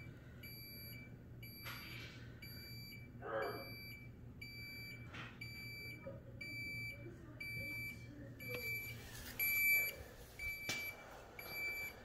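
Samsung side-by-side refrigerator beeping steadily in its forced defrost test mode, a high beep repeating about three times every two seconds, over a faint steady low hum.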